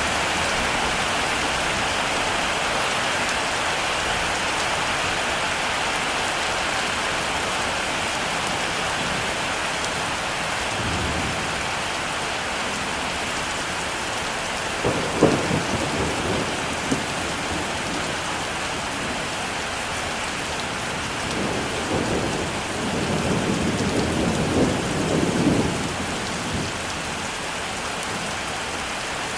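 Heavy rain falling steadily, with rolls of thunder rumbling about halfway through and again a little later, before fading away.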